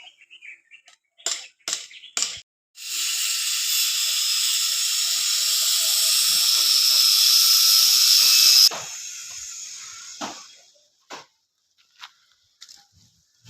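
A loud, steady hiss begins a few seconds in, grows slightly louder over about six seconds, then cuts off suddenly. A few short clicks come before it.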